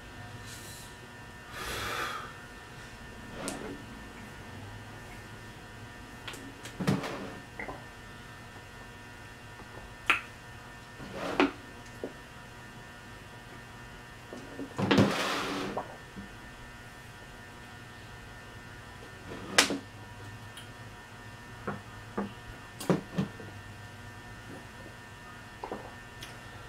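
Scattered mouth noises of eating (clicks and short chewing sounds) over a steady electrical hum, with a louder, longer stretch of drinking from a plastic gallon water jug about halfway through.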